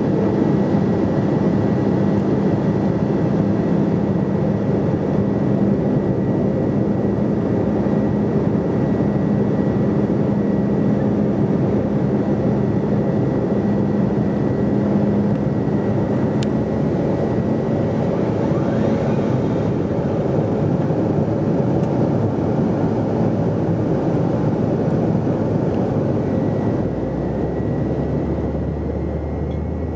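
Steady cabin roar of a Bombardier CRJ700 in flight on approach, its rear-mounted turbofans and the rushing airflow heard from inside the cabin, with a steady hum under the noise. Near the end the sound shifts slightly, a touch quieter with a deeper rumble.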